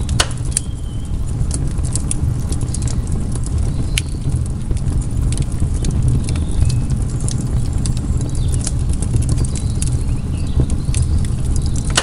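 Wood campfire crackling, with scattered sharp pops from the burning logs and coals, over a steady low rumble.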